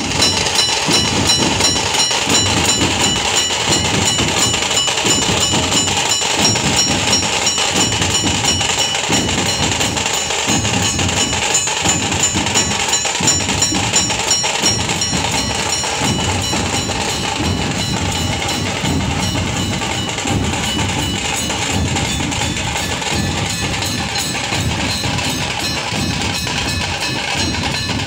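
Dhol-tasha troupe playing: many large barrel-shaped dhol drums beaten together in a driving rhythm, with brass hand cymbals ringing steadily over them.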